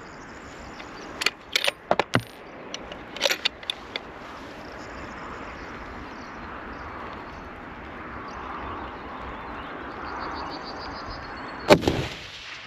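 A Tikka T3X TAC A1 .308 bolt-action rifle with a muzzle brake fires one loud shot near the end. Before it come several sharp clicks and knocks over a few seconds, then a steady hiss.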